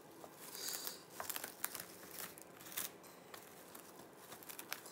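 Clear plastic wrap crinkling as it is stretched over a baking pan and pressed down by hand, in irregular small crackles.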